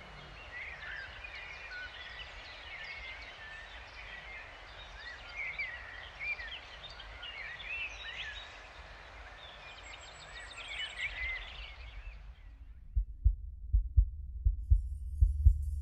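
Many small birds chirping and trilling over a soft outdoor hiss, a woodland dawn-chorus ambience that cuts off suddenly about twelve seconds in. Deep, repeated thuds then start and continue to the end.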